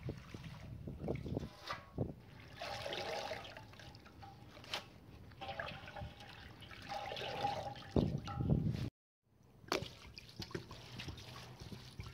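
Fresh herbs being washed by hand in a large aluminium basin: water trickling and splashing against the metal, with leaves and stems rustling and clicking. A short silent break about three-quarters of the way in, then water poured from a clay jug onto the herbs.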